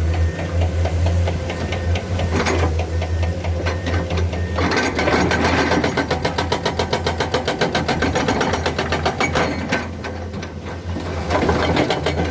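Heavy diesel earthmoving machinery running with a low, steady engine hum. From about five seconds in, a fast, even clatter of several pulses a second rises over it and eases off about ten seconds in.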